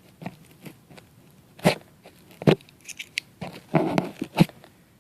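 A series of sharp knocks and clicks with rustling in between, loudest near the middle and near the end.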